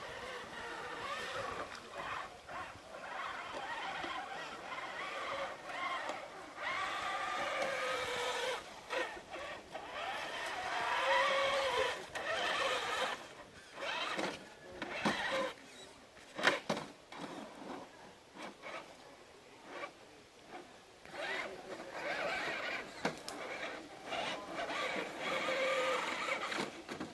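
Scale RC crawler truck's electric motor and gears whining in spurts, the pitch rising and falling as the throttle is worked, with occasional sharp clicks and knocks.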